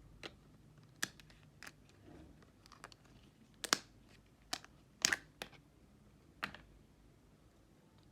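Jelly slime being handled, making about eight irregular sharp clicks and pops. The loudest come about four and five seconds in.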